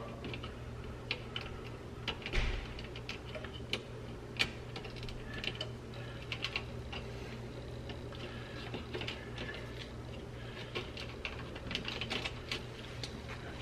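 Small, irregular clicks and ticks of thermostat wires being pushed apart and straightened with a screwdriver tip and fingers against the plastic base plate and terminal block, over a steady low hum.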